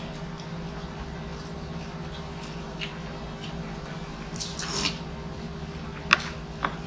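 Close-miked eating sounds from hand-eating: small mouth and finger-licking clicks, a wet squish about four and a half seconds in, and two sharp clicks near the end, over a steady low hum.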